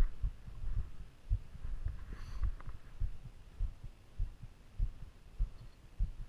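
Irregular muffled low thumps and rumble on a body-worn camera, jostled as the climber walks and handles the rope on snow.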